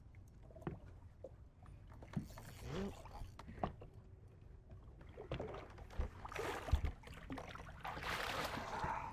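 Scattered knocks and clicks of handling on a fishing boat, over a low rumble of wind and water, with a noisier stretch in the second half.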